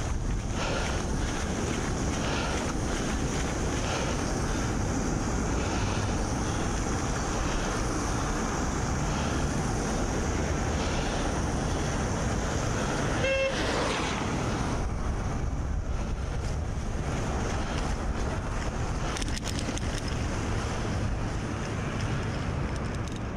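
Wind buffeting the microphone of a camera on a moving bicycle, a steady low rumble mixed with road noise from riding over snow and slush. About halfway through comes a short car horn toot, and the sound fades out near the end.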